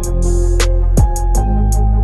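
Background music with a beat: deep bass drum hits that drop in pitch, sharp percussive clicks, and held melodic notes.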